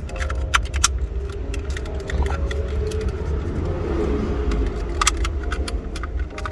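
Small plastic parts clicking and rattling as they are handled and fitted back together, many short irregular clicks over a steady low hum.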